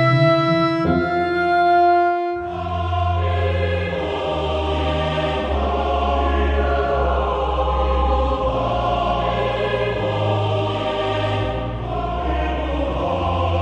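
Slow, dark background music: held keyboard notes at first, then about two seconds in a fuller sustained chord with a steady deep bass underneath takes over.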